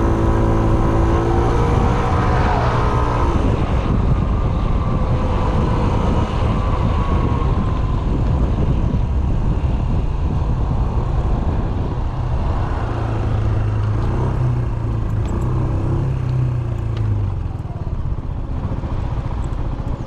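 Yamaha Smax 155 scooter's single-cylinder engine under way, with wind rushing over the microphone. The engine note falls about two to three seconds in as the scooter slows. A steadier low engine hum comes up again later as it rolls slowly, and the sound eases off near the end.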